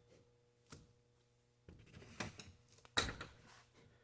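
A few scattered knocks and clunks. The loudest is about three seconds in, with a short ring after it.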